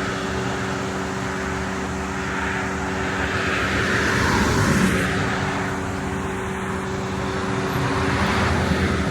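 Steady drone of a car on the road: engine and tyre noise with a few constant low hum tones, holding evenly throughout.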